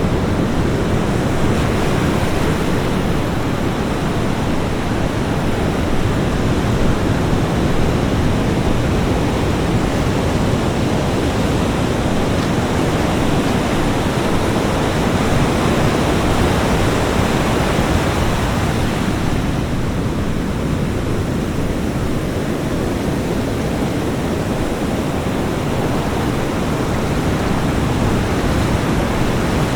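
Ocean waves washing onto a beach, a continuous surf noise that swells and eases slowly, with a slight lull about two-thirds of the way through.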